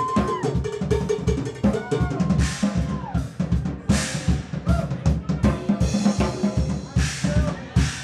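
Drum solo on an acoustic drum kit with clear acrylic shells: fast, dense bass drum, snare and tom strokes, broken by cymbal crashes about two and a half, four and seven seconds in.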